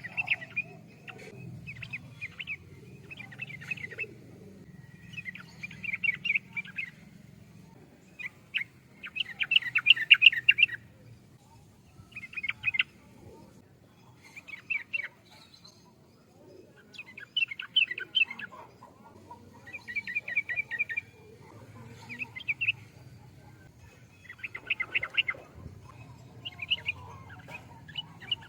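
Yellow-vented bulbul (trucukan) singing: about a dozen short, bubbling chattering phrases, one every two seconds or so, the loudest about ten seconds in.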